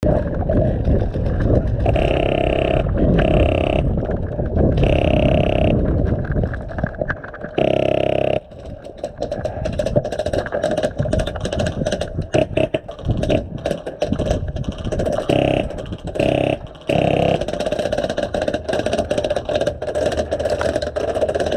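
Wind rumbling on a body-worn camera's microphone over heavy breathing while running, then many short sharp pops and clicks of airsoft gunfire and BBs striking metal cover from about nine seconds in.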